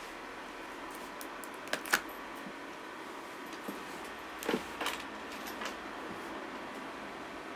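Handling noise at close range: a few sharp clicks and knocks, two about two seconds in and a small cluster around four and a half to five seconds, over a steady faint hiss, as someone moves about next to the streaming device and sits back down in front of it.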